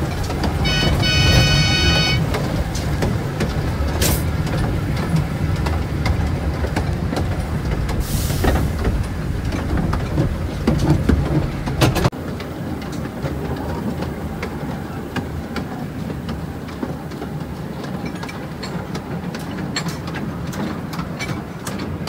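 Taipingshan forest railway's small narrow-gauge tourist train (bong-bong car) running along the track: a steady low rumble with the wheels clicking over the rail joints, a brief high squeal about a second in and a short hiss near the middle. The rumble drops away suddenly about halfway through.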